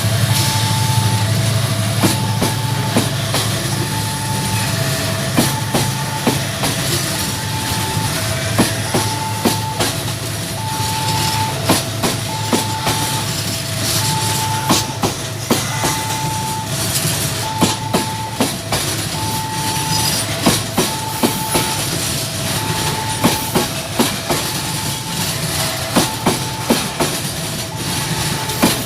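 A train rolling past, its wheels clacking over rail joints, with a deep locomotive hum near the start that fades as it goes by. Over it a two-tone electronic level-crossing warning alarm sounds continuously, alternating a high and a low tone about once a second.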